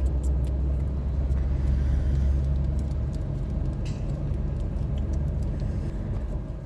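Steady low engine rumble, like a running motor vehicle, easing off about three seconds in, with a few faint light clicks.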